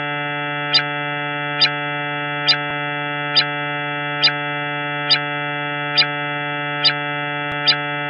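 Steady electronic drone holding one unchanging chord, with a short high-pitched tick repeating a little more than once a second, nine ticks in all.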